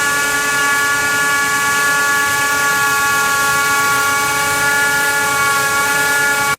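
Hilti wire saw running: a steady machine whine of several held tones over a loud, even hiss, cutting off suddenly at the end.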